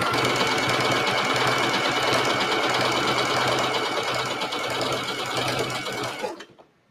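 Sewing machine running at a steady speed, stitching leather scraps together, with a steady motor hum; it stops about six seconds in.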